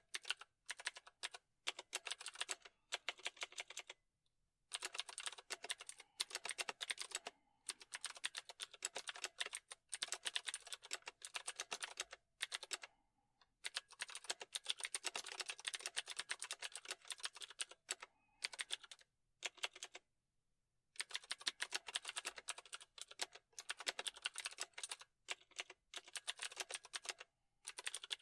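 Computer keyboard typing: fast runs of key clicks broken by several short pauses of up to about a second.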